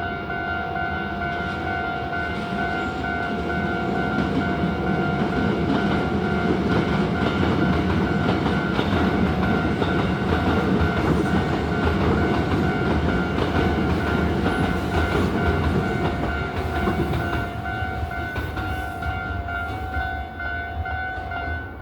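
Japanese railway level-crossing warning bell ringing a fast, steady repeating ding, while a Hankyu train runs through the crossing with a rumble and clatter of wheels on rail. The train noise swells a few seconds in and fades in the last few seconds. The bell cuts off at the end.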